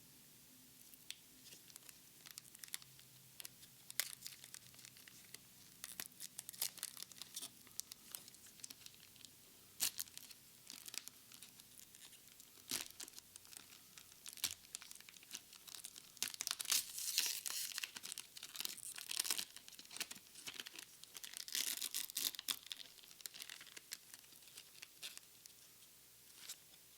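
Plastic Pokémon card packaging being torn open and crinkled by gloved hands: sporadic sharp crackles and rips, busiest in two spells past the middle.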